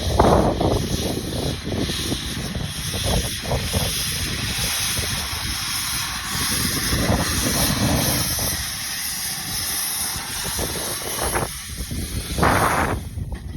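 Wind buffeting the microphone in gusts over the steady hiss of steam escaping from a steam locomotive.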